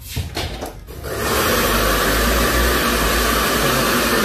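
A hair dryer switched on about a second in, blowing with a steady rush of air, after a few light clicks.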